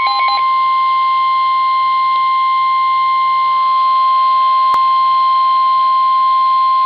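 NOAA Weather Radio 1050 Hz warning alarm tone: one loud, steady beep, the signal that a warning message follows. In the first half second a fast pulsing beep sounds over it, and there is a single click near the middle.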